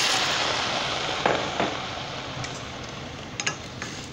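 Green beans and potatoes in oil in a stainless steel skillet sizzling as a cup of water hits the hot pan, the hiss fading steadily as the water cools the pan. A few light clicks of a wooden spoon against the pan come about a second in and again near the end as the vegetables are stirred.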